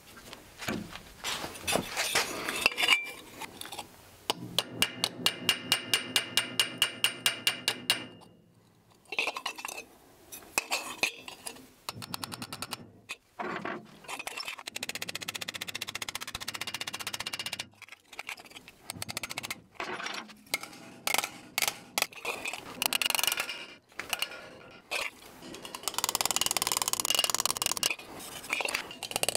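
Hammering and tapping on metal during dent work on a Ford Model A hubcap. About four seconds in there is a quick run of ringing hammer strikes, roughly six a second, and after it come scattered taps and clinks, with a stretch of hissing noise near the end.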